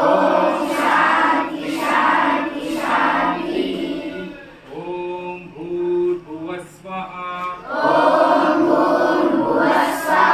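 A group of children chanting together in unison, loud at first, quieter for a few seconds in the middle, then loud again.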